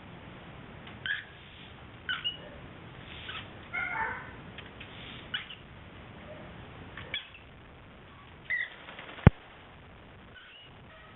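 Cockatiel giving a string of short chirps and squawks, spaced irregularly, with one sharp click about nine seconds in that is the loudest sound.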